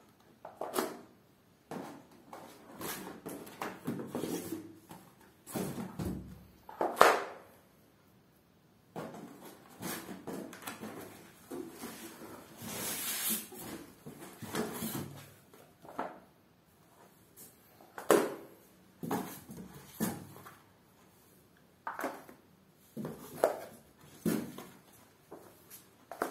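Paperback books being handled, slid and set down on a concrete floor: irregular thumps, scrapes and rustles, with one sharp knock about seven seconds in.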